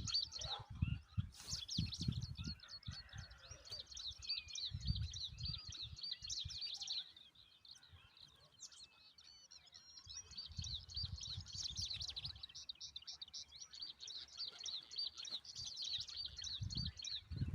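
Birds chirping in a rapid, continuous series of short high notes, pausing for a couple of seconds past the middle, with intermittent low rumbles underneath.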